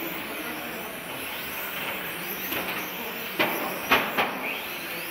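1/10 electric RC touring cars with 17.5T brushless motors racing round the track: a steady hiss with thin high whines rising and falling as the cars accelerate and brake. Three sharp knocks come a little past halfway.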